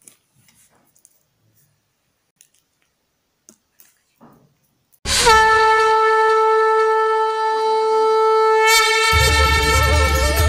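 Devotional background music starts about five seconds in with one long, loud blown note, held steady after a slight dip in pitch at the start. About nine seconds in, a bass beat and drone join and a melody begins to climb. Before the music, only faint clicks of tape and paper being handled.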